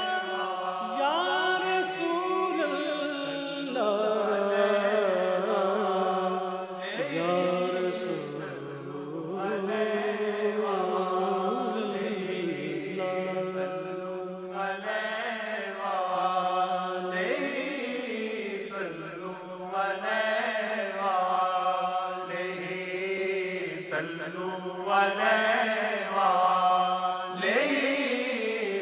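Devotional salawat chant: a melodic sung blessing on the Prophet in Arabic, the voice gliding and bending in pitch in long phrases.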